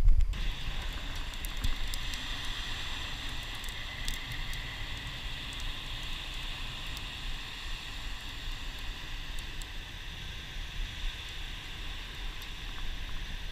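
Steady hiss of wind and water on an action-camera microphone, with a low rumble underneath and a knock at the very start.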